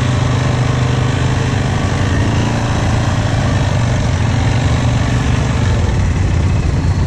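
ATV engine running steadily at low speed while riding along a muddy trail, with no hard revving.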